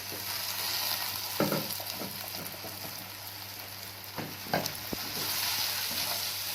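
Rice grains sizzling as they fry in ghee and oil in a pot before the water goes in, stirred through, with a few short knocks of the spoon against the pot.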